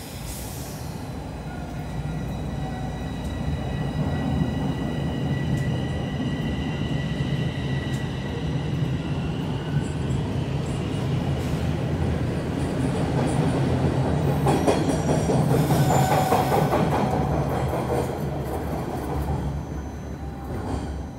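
Bombardier Toronto Rocket subway train pulling out of the station. A steady high whine sits over a rising rumble of wheels on rail, which grows loudest as the cars speed past about three-quarters of the way in, with some wheel squeal, then eases slightly.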